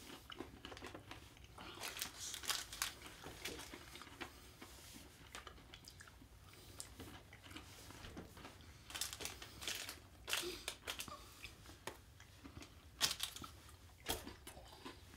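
Faint chewing of a Hershey's Cookie Layer Crunch bar, milk chocolate with crunchy chocolate cookie bits, mixed with scattered soft crackles and crinkles from the wrappers being handled.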